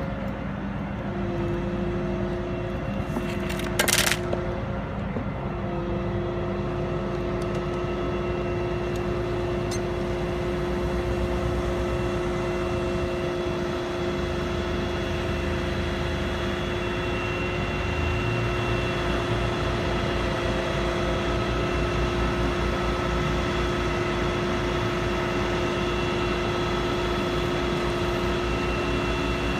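Crane engine running steadily with a constant hum and whine, and a short loud noise about four seconds in.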